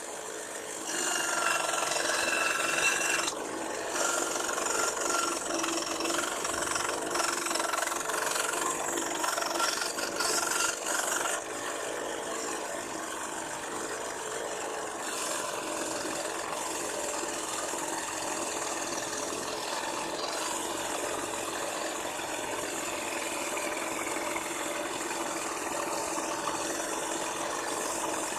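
Homemade band saw running with a steady machine hum and rattle, louder and more uneven for about the first ten seconds, then steadier and a little quieter.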